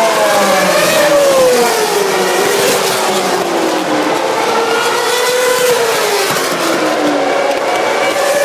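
Formula One cars' 2.4-litre V8 engines passing at speed one after another, each engine note falling in pitch as the car goes by, over a steady hiss from tyres on the wet track.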